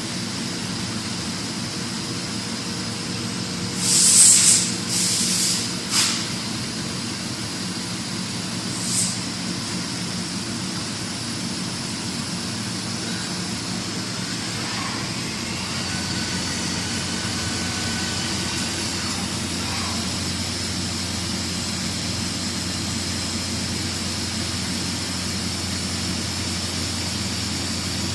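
Fermat WFC 10 CNC horizontal boring mill running with a steady machine hum, broken by short loud hisses, a few close together and one more a few seconds later. About halfway through a deeper steady hum comes in, with faint gliding tones as a motor comes up to speed.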